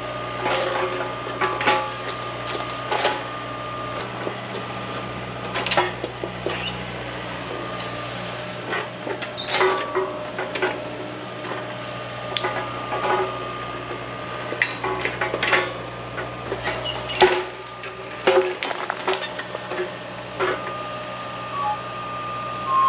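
Excavator engine running steadily under repeated sharp clanks and knocks, the kind made by a bucket and tracks working against rocks; the loudest knock comes about two-thirds of the way in.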